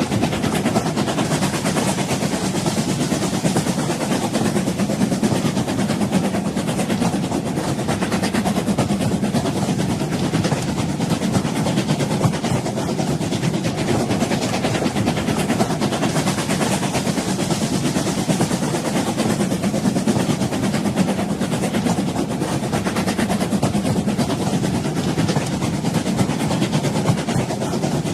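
Train running along the track: a steady low rumble with dense, continuous rattling and clatter of the cars.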